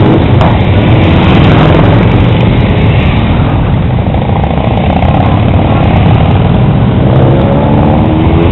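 Large cruiser and touring motorcycles riding slowly past one after another, their engines loud throughout. The sound eases a little midway, then builds again near the end as the next bike comes by.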